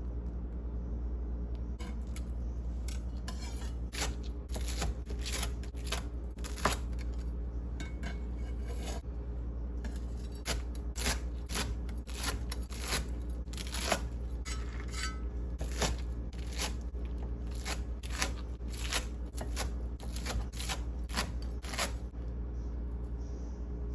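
Kitchen utensils clicking and scraping: irregular sharp clicks, about one or two a second, from about two seconds in until near the end, over a steady low hum.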